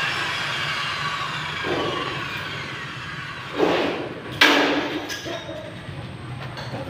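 Galvanized iron sheet metal being handled on a concrete floor: a few knocks and rattles of the sheet, the sharpest a metallic knock with a short ring about halfway through.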